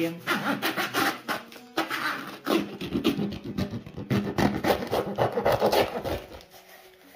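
Rapid, irregular rubbing and scraping strokes that fade out near the end, over quiet background music.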